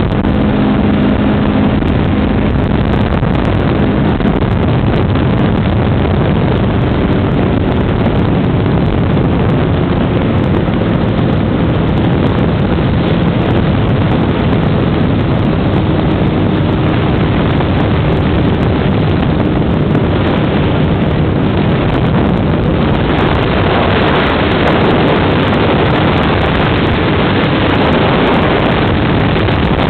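Microlight trike's engine running steadily in flight, under a heavy rush of wind across the microphone. The wind noise grows stronger over the last several seconds.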